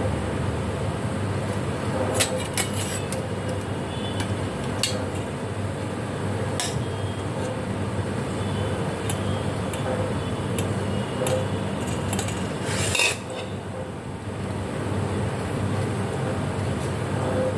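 Kitchen utensils clinking and knocking against pots and pans every few seconds over a steady low hum.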